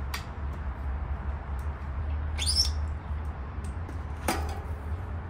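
Metal headset and fork parts of a mountain bike clinking as they are worked on by hand, with a light click near the start and a sharp metal clink with a brief ring about four seconds in. A short high chirp comes about halfway, over a steady low rumble.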